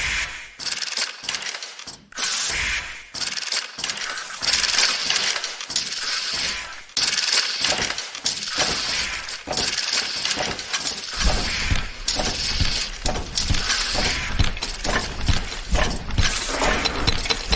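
Dense, irregular metallic clicking and clattering of garment-making machinery, with a low rumble joining in about two thirds of the way through.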